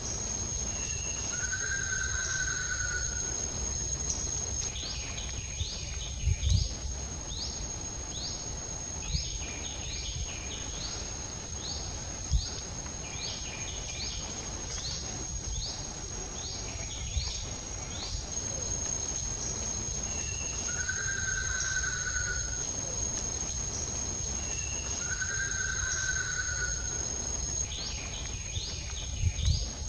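Outdoor natural ambience: a steady high insect drone, with repeated short upward bird chirps and, three times, a held whistled bird note. Underneath there is low wind rumble and a few soft knocks.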